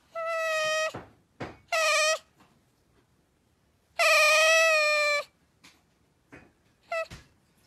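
Pet otter giving high, squeaky calls while its head is rubbed: three drawn-out calls and a short one near the end. The longest and loudest comes about four seconds in and lasts over a second, its pitch dropping slightly.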